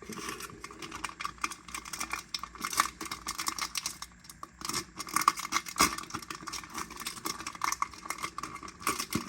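A trading-card pack wrapper being torn open and the cards handled, heard as a continuous run of small crackles and clicks.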